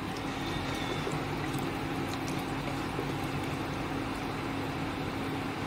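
Wooden spoon stirring rice, vegetables and water in a pressure cooker pot: faint sloshing and scraping over a steady background hum.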